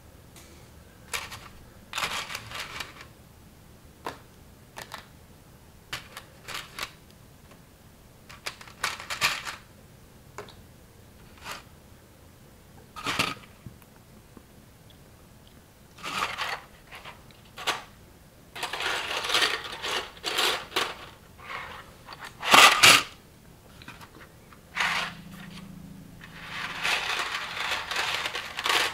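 Plastic building bricks from a knockoff LEGO-style spaceship kit being handled: scattered sharp clicks as pieces knock or snap together, and longer stretches of rattling among loose pieces. The loudest click comes a little after the middle.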